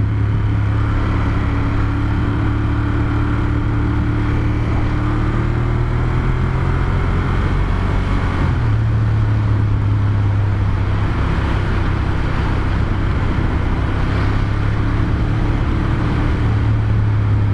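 Ducati Monster 1200S's L-twin engine running under way. Its note rises for a few seconds, then changes abruptly about halfway through.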